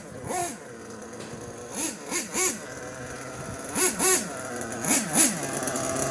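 Hobao MT radio-controlled monster truck's motor revved in short blips: about eight quick rises and falls in pitch, mostly in pairs.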